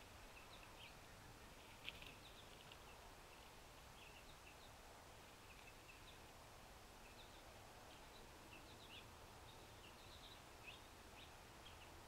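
Birds chipping and calling faintly in short, scattered notes over a low steady background hum, with one sharp tick about two seconds in.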